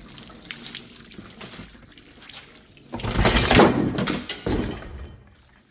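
Fluid pouring and splashing out of a Ford 360 FE engine during teardown. A steady trickle swells into a much louder gush about three seconds in, then tapers off.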